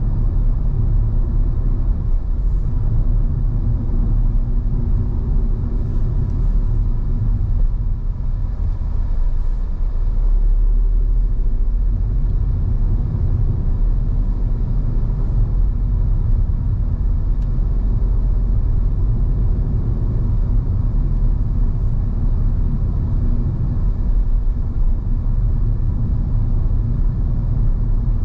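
A car driving, heard from the car itself: a steady low rumble of engine and road noise with no marked changes.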